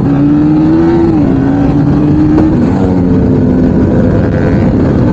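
Sport motorcycle's engine running at speed. Its note climbs slightly, drops about a second in, then steps lower again a little past the middle as the throttle eases. Heavy wind and road noise run under it.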